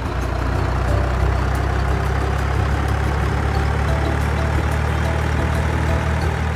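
Truck engine idling with a steady low rumble, with a light music melody playing over it.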